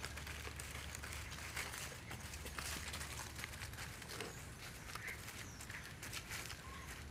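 Crackling and rustling in dry leaf litter as monkeys move about, with a few short, high chirps.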